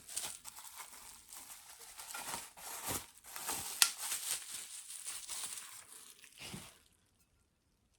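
Packaging around a small plant pot being unwrapped and crinkled by hand: a continuous rustle with a sharp click about four seconds in, stopping about a second before the end.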